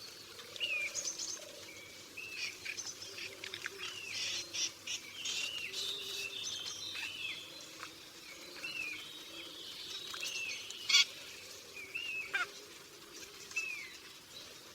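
Forest ambience of several birds calling: short, repeated rising-and-falling chirps and twitters, with a faint wavering low warble underneath. A single sharp, loud click-like call stands out about eleven seconds in.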